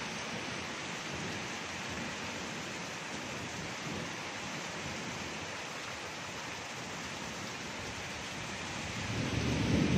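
Heavy rain pouring steadily. Thunder rumbles up low near the end.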